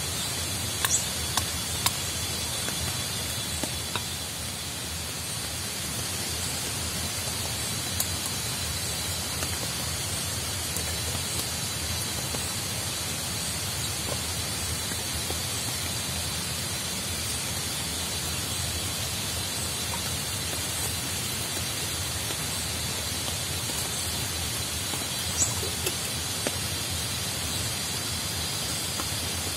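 Steady hiss of rain falling in tropical forest, with a faint steady high tone above it. A few sharp knocks sound in the first two seconds and a couple more about 25 seconds in.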